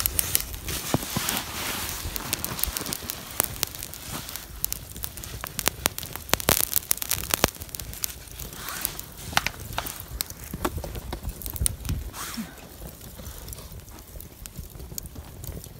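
Lump charcoal and flames in a portable sheet-steel mangal crackling and popping at irregular intervals as the coals catch. The pops thin out near the end.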